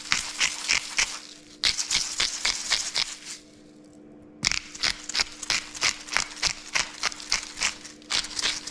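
Twist salt grinder crunching coarse pink rock salt in quick rhythmic turns, several clicks a second. After a short pause near the middle, a black pepper grinder grinds the same way.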